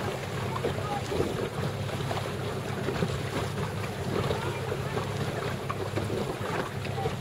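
Wind buffeting the microphone over open sea, with water splashing and a steady low hum underneath.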